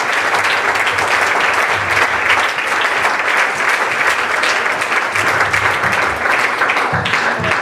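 Congregation applauding steadily, the clapping dying away near the end.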